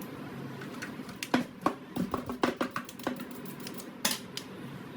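A run of about ten sharp, irregular clicks and taps of hard plastic as a discarded smartphone is handled, with the loudest strikes about a second and a half in and about four seconds in.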